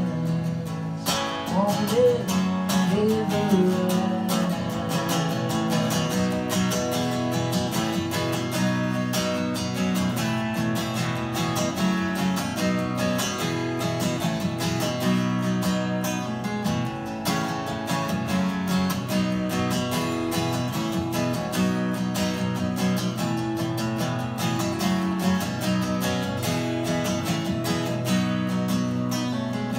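Acoustic guitar strummed steadily in an instrumental passage of a folk song, chords changing in a regular rhythm.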